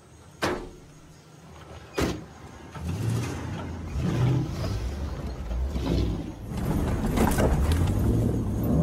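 A car door clicks and then slams shut about two seconds in. Then vehicle engines run with a low rumble that gets louder in the second half as the off-roaders drive off.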